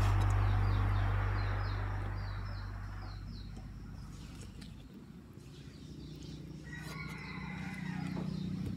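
Background guitar music fades out over the first few seconds, leaving faint outdoor ambience. A bird chirps in a quick series of short notes, then a chicken calls briefly about seven seconds in, with a few soft knocks of handling on the chopping board.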